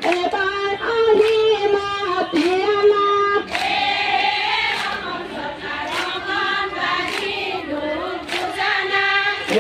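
Group of women singing a protest song together in unison, with voices held on sustained notes. The sound grows fuller about a third of the way in as more voices join.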